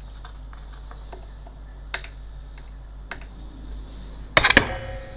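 Scattered light clicks and taps from test equipment being handled on an electronics repair bench, over a steady low hum. Near the end comes a quick cluster of loud clicks, followed by a brief faint ringing tone.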